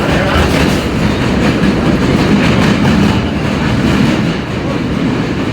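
R32 subway car running along the track, heard from inside the car: a steady rumble of wheels and running gear with faint clickety-clack from the rails.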